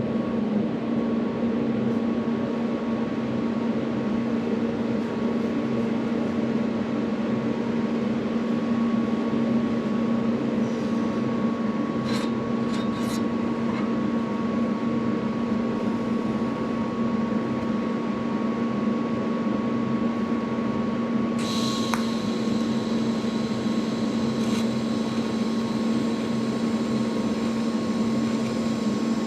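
TIG welder running during slow build-up passes on a cast iron differential carrier: a steady electrical hum with a thin high whine. About 21 seconds in, a hiss joins.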